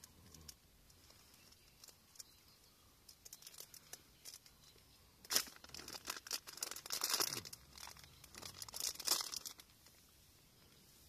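Plastic food packets crinkling and being torn open by hand, with a few small clicks at first and a busy stretch of rustling and tearing from about five seconds in to near the end.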